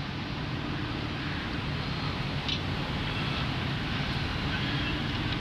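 Steady road and engine noise of a car being driven, heard from inside the cabin, with a low hum underneath.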